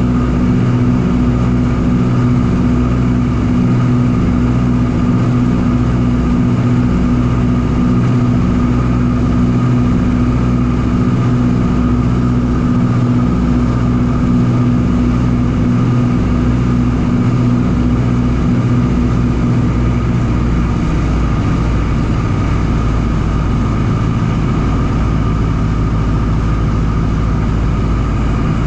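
Ford Tri-Motor's radial engines and propellers running steadily in cruise flight, heard inside the cabin, with a regular pulsing beat in the drone. About two-thirds of the way through the beat smooths out and the engine note changes slightly.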